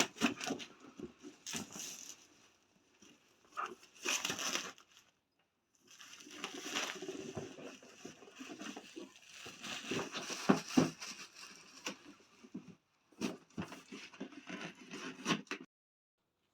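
AIO CPU cooler packaging being opened and handled: cardboard and plastic rustling and crinkling in irregular spells, with light knocks and a pause of about a second around the middle.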